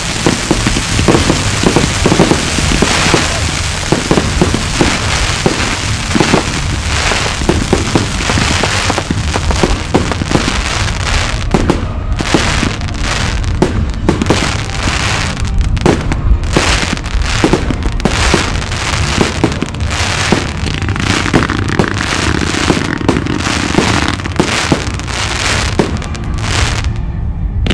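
Fireworks firing in a rapid barrage of bangs and crackles from rising comets and star bursts. For the first several seconds it is a dense, near-continuous crackle, then it thins into separate sharp reports.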